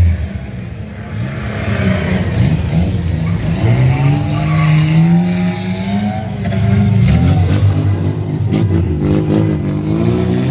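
Car engines revving and accelerating, their pitch climbing and dropping again and again, as a car drives past close by.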